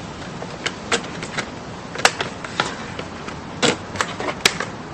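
Handling noise: a handful of short plastic clicks and knocks, spaced irregularly, as the parts of a boxed RC car are handled, over a steady faint hiss.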